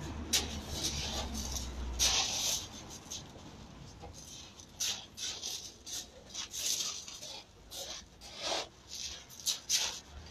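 Feet shuffling and stepping on loose gravel, a string of short, irregular crunches and scrapes.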